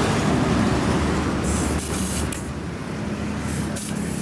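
Compressed air hissing in short bursts from an air hose chuck as a motorcycle tyre is inflated, over steady street traffic noise.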